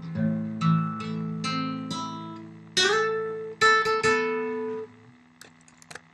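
Acoustic guitar playing the closing bars of a song: picked notes, then two strummed chords about three seconds in that ring on and fade out about five seconds in. A few faint clicks follow near the end.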